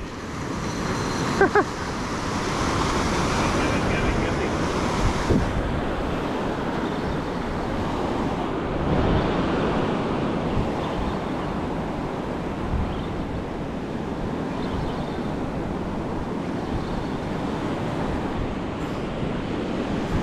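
Surf breaking and washing up a sandy beach in the shore break, a steady rush of water.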